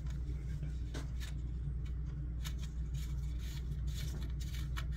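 Scattered small clicks and scrapes of a soldering-iron cable's round connector being fumbled into the port of a Metcal MX-500P power supply, over a steady low hum.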